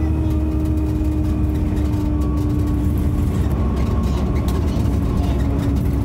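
Bus diesel engine running under way, heard from on board: a steady low rumble with a steady whine over it that drops slightly in pitch, and a few light rattles around the middle.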